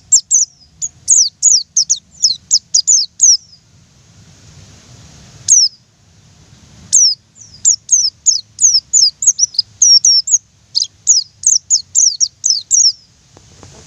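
White-eye (pleci) singing in rapid volleys of high, quick notes that each drop in pitch. A run of about a dozen notes comes at the start, a single note follows in the middle, and a longer run of many notes takes up most of the second half.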